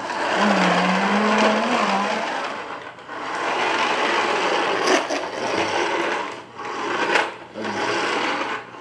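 Plastic toy trucks rolling and scraping along a hard surface, in four runs of one to three seconds each with short breaks between them.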